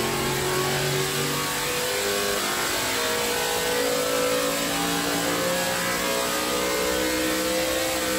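Carbureted Chevrolet SB2 small-block V8 race engine running hard on an engine dynamometer during a dyno pull, its pitch climbing slowly and steadily as the revs rise.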